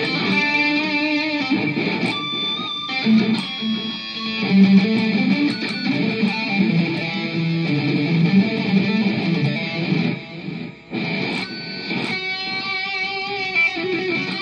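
Electric guitar played through a Zoom G5n multi-effects processor with its delay effect switched on, so the picked notes and chords carry echoes. There is a brief gap in the playing near eleven seconds in.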